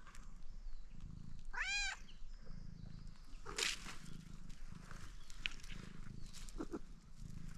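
Domestic cat purring in low pulses about once a second while rolling on the ground, with one short meow rising and falling in pitch about two seconds in and a brief rustle of dry leaves and gravel near the middle.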